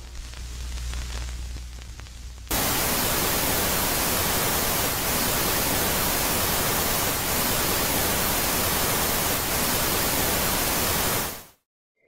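Steady static hiss like white noise, starting suddenly about two and a half seconds in after a quieter low rumble, and fading out just before the end: a noise track played as the 'sound' of a moon.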